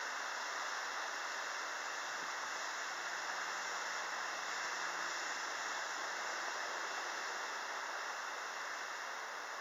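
Steady, even hiss of outdoor background noise, with a faint low hum for a couple of seconds near the middle.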